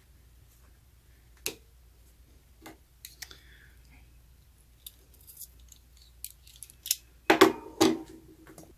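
Scattered light clicks and taps of metal parts and tools being handled at an opened band-saw gearbox, then two louder metallic clanks with a brief ring near the end.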